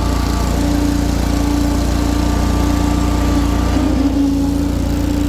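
Exmark Lazer Z 52-inch commercial zero-turn mower's engine running steadily at high speed as the mower drives along the road.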